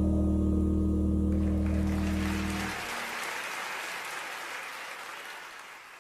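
The a cappella group holds a final chord, which cuts off a little under three seconds in. Audience applause swells over its end and fades away.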